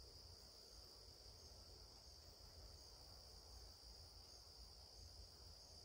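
Near silence, with the faint steady high-pitched drone of insects such as crickets.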